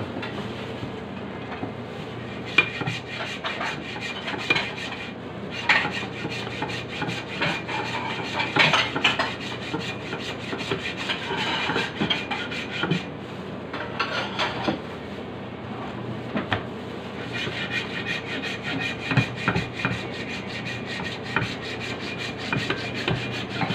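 Hand hacksaw drawn back and forth through a very hard, porous block, a steady rasping scrape that rises with each stroke.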